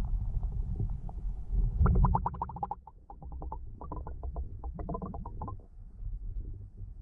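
Muffled underwater sound picked up by a GoPro in its waterproof housing: a constant low rumble of water moving around the camera. About two seconds in come runs of rapid clicking pulses, loudest at first, which thin out and stop a little past the five-second mark.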